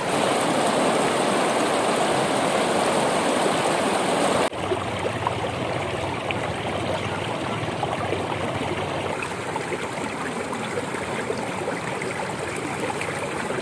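Running water, a steady rush that drops in level abruptly about four and a half seconds in, with faint small clicks afterwards.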